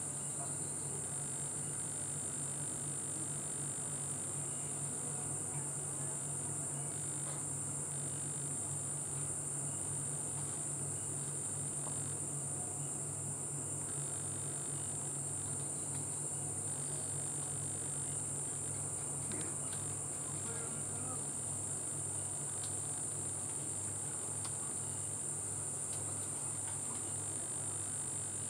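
Steady, unbroken high-pitched chorus of night insects, with a low steady hum underneath.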